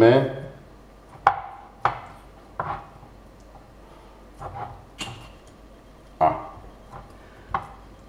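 A glass jar knocking on a wooden cutting board in a series of irregular sharp knocks as a chunk of raw pork neck is pushed down into it by hand.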